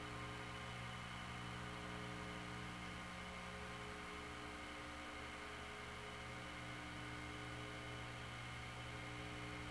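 Steady electrical mains hum with buzzy overtones over a faint hiss, unchanging throughout.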